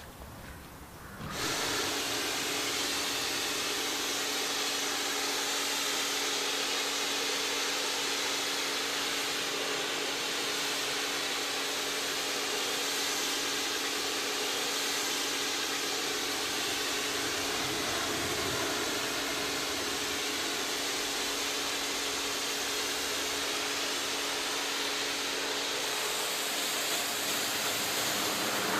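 Entry-level Kärcher electric pressure washer switching on about a second in and running steadily: a constant hiss of spray over a steady motor and pump hum.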